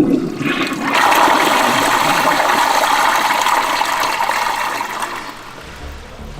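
Toilet flushing: a loud rush of water that swells about a second in, then slowly tapers off.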